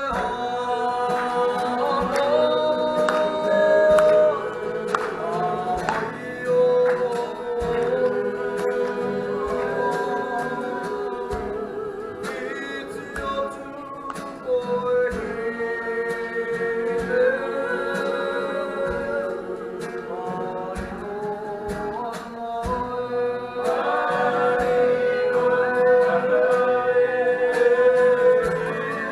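Several voices singing a slow song together in long held notes, with a light regular beat beneath.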